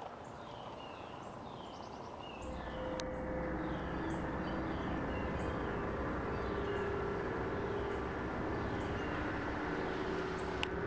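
An unidentified low droning rumble with several steady hum tones comes in about two and a half seconds in and holds. Small birds chirp over it repeatedly.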